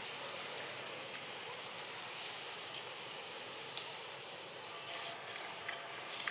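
Steady outdoor background: an even high hiss, insect-like, with a few faint scattered ticks and no monkey calls.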